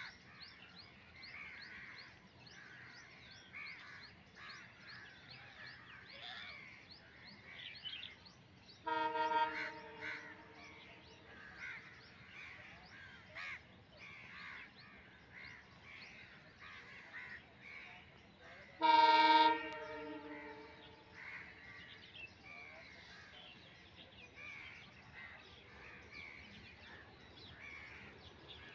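WDG4 diesel locomotive sounding its horn twice at a distance, each blast about a second long and some ten seconds apart, over continual birds calling.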